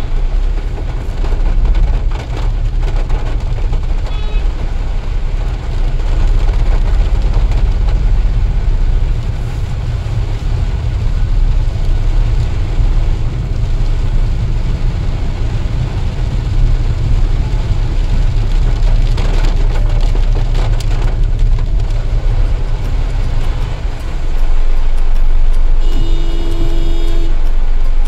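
Cabin noise of a car driving on a wet road in rain: a steady low rumble of engine and tyres with a hiss of water over it. A car horn honks once, briefly, near the end.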